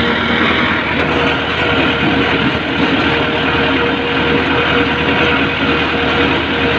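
Tractor's diesel engine running steadily under load while driving a boom sprayer through a field, heard close up from the driver's seat: a constant hum with a steady tone over the engine noise.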